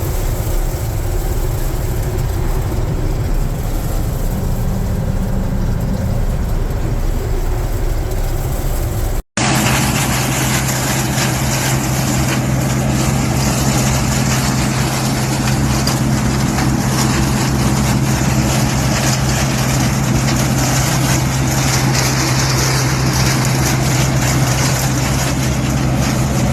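1978 John Deere 4400 combine running steadily while shelling corn, a constant machine drone. About nine seconds in there is a sudden cut, and the running comes back louder with a steady low hum.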